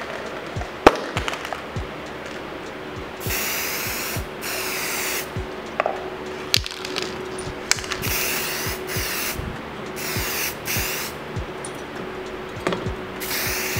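Aerosol spray can of clear lacquer hissing in a series of short bursts, each under a second, as it seals a rust-effect finish on a steel tube. A sharp click about a second in.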